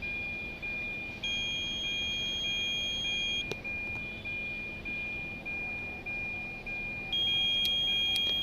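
Multimeter continuity buzzer giving a steady beep twice, for about two seconds each time, as the probes touch live connector pins: its sound shows the pin has supply. Under it the car's warning buzzer beeps steadily about twice a second.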